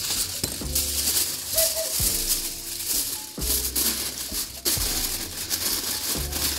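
Background music with bass notes and chords changing every second or two, and a steady rattling hiss over the top.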